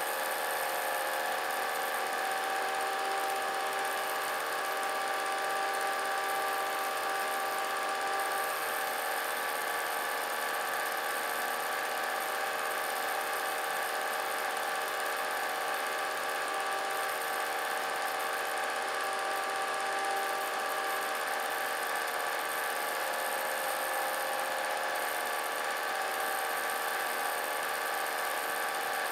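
Vintage film projector running: a steady motor whir with several constant whining tones over a hiss, even throughout.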